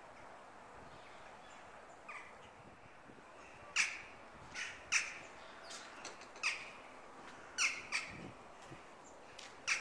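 Crow-family birds calling: a string of short, sharp calls, mostly bunched from about four to eight seconds in, over a faint steady hiss.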